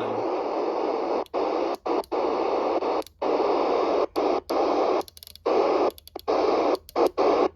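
FM CB radio receiver hiss on the 27 MHz UK FM channels, heard through the rig's speaker. It is a steady rushing noise that cuts out to near silence for brief moments about eight times as skip signals come and go.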